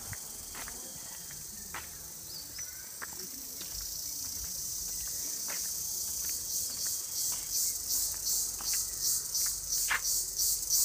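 Insects droning in a high, shrill chorus that turns into a rhythmic pulsing, about two to three pulses a second, and grows louder about six seconds in. A few faint clicks are heard under it.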